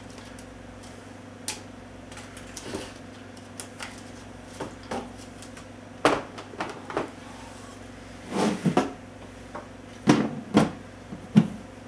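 Scattered clicks and knocks of hard plastic being handled: a filament spool is set back onto a filament dryer, and its clear plastic cover is lowered over it, with a louder cluster of knocks past the middle and more near the end. A steady low hum runs underneath.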